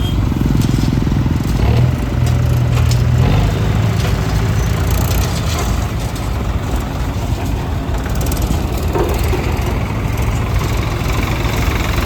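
Diesel engine of heavy construction machinery running, louder and deeper for the first few seconds, then steady.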